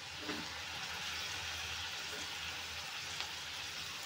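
Chopped brinjal pieces tipped into a steel kadai of frying onion and tomato, landing with a soft bump about a third of a second in, then a steady sizzling hiss of the frying.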